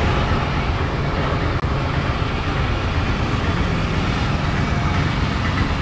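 Steady motor hum with a rushing noise over it.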